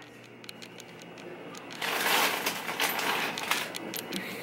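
Ice cubes clattering into a glass cup. The rush starts about two seconds in and lasts about a second and a half, with scattered clinks around it.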